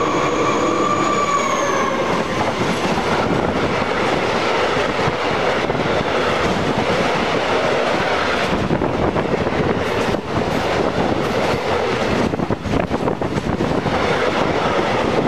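Freight train of tank wagons rolling past at speed, with a loud steady rumble of wheels and wagons. Near the start a steady whine from the locomotive drops in pitch as it goes by. From about halfway through, the wheels clatter and knock over the rail joints.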